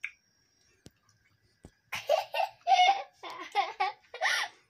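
A young child laughing in a run of short bursts, starting about two seconds in.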